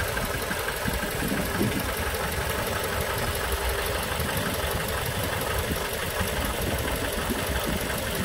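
2004 Mazda 3's four-cylinder engine idling steadily.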